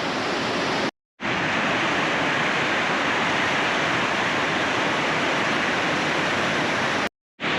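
A river running high, its water rushing in a steady, even roar. The sound cuts out briefly about a second in and again near the end.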